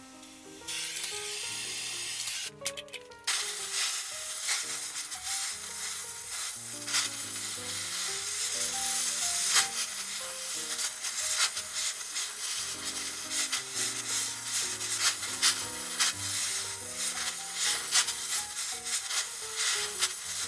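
Oxy-fuel torch flame hissing steadily with a fine crackle as it heats an iron brake rod to red heat; the hiss breaks off briefly about three seconds in, then carries on.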